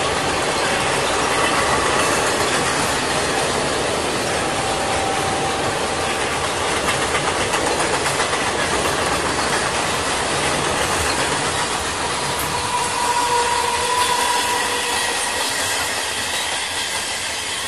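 Indian Railways passenger trains running past, one crossing the steel truss bridge overhead and one on the track below, a steady rumble with wheels clattering over rail joints. A brief thin wheel squeal comes about two-thirds of the way through, and near the end an EMU local passes close by.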